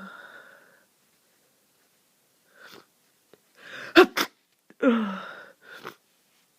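A person with a congested flu sneezing several times in a row. Each sneeze is a noisy burst with a cry that falls in pitch. The loudest is a sharp double burst about four seconds in, with short quieter breaths between the sneezes.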